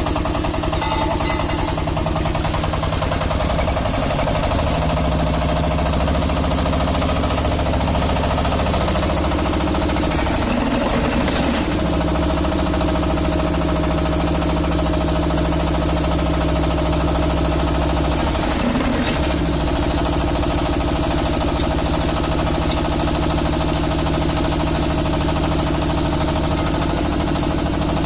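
Diesel engine of a QT4-30 hydraulic concrete block machine running steadily with a knocking note. Its sound shifts briefly twice, at about ten and nineteen seconds in.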